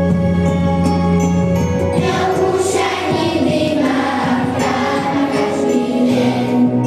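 Children's choir singing a Slovak song with instrumental accompaniment; the held bass notes underneath change about six seconds in.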